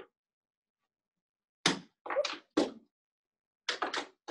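Handling noise: short thumps and knocks as objects are moved about, three in quick succession about halfway through and two more near the end.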